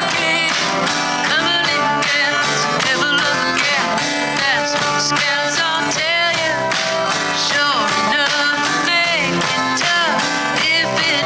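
A song with a sung vocal over guitar accompaniment.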